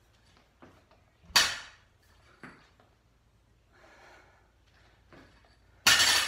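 A loaded barbell brought down onto the gym floor near the end, one loud sudden impact that fades over about half a second. About a second in there is one loud, short hissing sound, with quieter faint sounds between.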